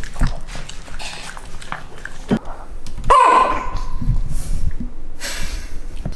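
Small pet dog crying, with one loud yelp about three seconds in.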